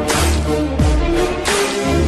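Electronic background music with a heavy bass line and a repeating beat, a rushing sweep recurring about every second and a half.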